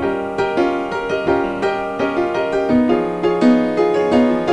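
Background piano music, a gentle run of single notes and chords struck about three times a second.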